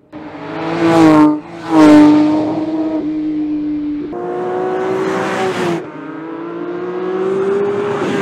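Porsche 911 GT3's 4.0-litre naturally aspirated flat-six at high revs on track. Two loud pass-bys in the first two seconds, with the pitch dropping as the car goes by, then steady high-rev running. After cuts at about four and six seconds, the pitch climbs as the car accelerates.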